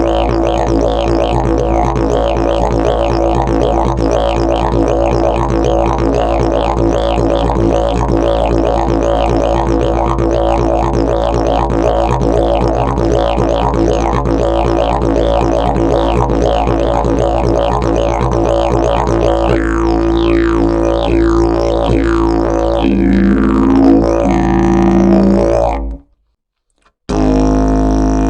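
Fiberglass and prickly-pear-fibre slide didgeridoo being played: a steady drone with a fast rhythmic pattern worked over it. Near the end the pitch shifts, the playing stops for about a second, then a new drone starts.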